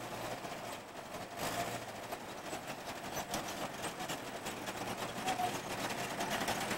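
Land Rover Series 4x4's engine running as it drives slowly toward the listener, growing steadily louder as it nears.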